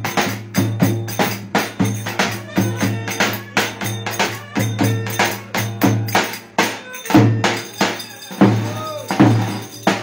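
Davul, the large Turkish double-headed drum, beaten with a stick in a steady dance rhythm of about three strikes a second. After about seven seconds it changes to a few louder, more widely spaced strokes, ending right at the close.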